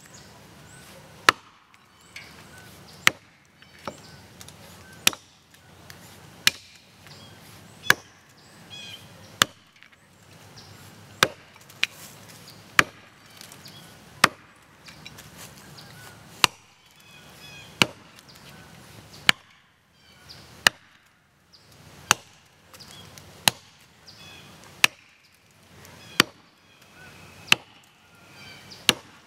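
Axe chopping into the trunk of a standing tree: about twenty sharp strikes of the blade into the wood at a steady pace, roughly one every one and a half seconds.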